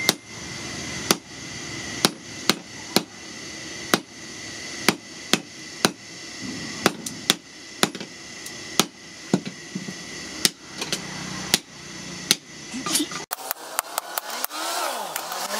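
Hand hammer striking red-hot leaf-spring steel on a steel post anvil while forging a machete blade: sharp, ringing blows at an uneven pace of roughly one to two a second.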